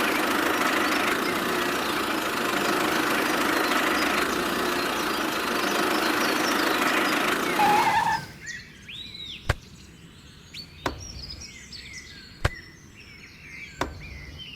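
A small motor or engine running steadily, cutting off about eight seconds in. Then four sharp knocks a second or so apart, with birds chirping faintly.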